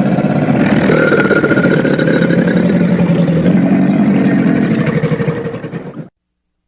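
Crocodile growling: one long, rough, rapidly pulsing rumble lasting about six seconds, which cuts off abruptly near the end.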